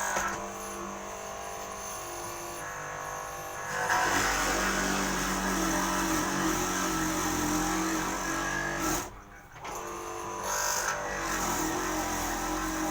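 Electric motor of a wood mortising machine running with a steady hum. It gets louder and rougher about four seconds in as the cutter bites into the wood, then drops out briefly about nine seconds in before picking up again.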